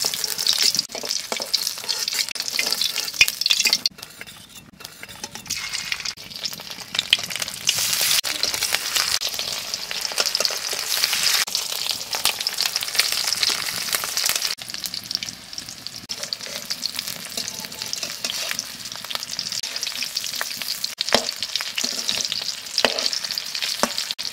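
Pieces of steamed egg-and-cabbage cake sizzling as they shallow-fry in mustard oil in a kadai, with a metal spatula scraping and clicking against the pan as pieces are turned, lifted out and added. The sizzle dips for a moment about four seconds in.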